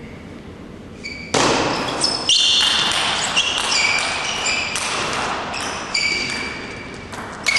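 Table tennis rally: the ball knocking back and forth off the rackets and table in a large hall. About a second and a half in, a loud hissing din with high-pitched squeaks comes in and stays.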